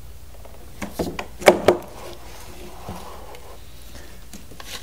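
Hard plastic toy parts of an Octonauts Octo Lab playset clicking and knocking together as an air hose is pushed onto a fitting, with a cluster of sharp clicks about a second and a half in.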